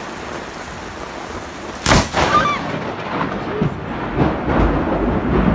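Heavy rain hissing steadily, then about two seconds in a close lightning strike: a sudden sharp thunder crack followed by loud low rumbling thunder.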